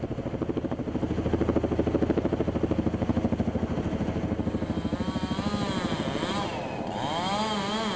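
Logging helicopter flying, its rotor giving a fast, even rhythmic chop. In the second half a whine bends down and back up in pitch.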